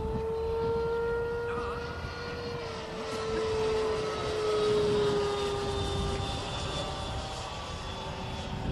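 Electric ducted fan of an RC model de Havilland DH-112 Venom jet, running on a 6S battery, whining steadily as the model flies past overhead. The pitch edges up, then drops and fades as it passes, over a low rumble underneath.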